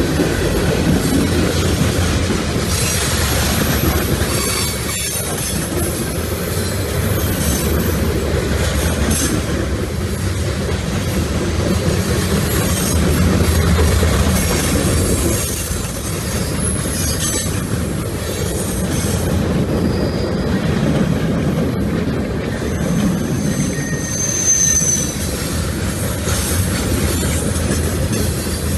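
Freight cars of a CSX manifest train rolling past: a steady rumble of wheels on rail with clicking over rail joints. Now and then the wheels squeal, with one brief high squeal about 24 seconds in.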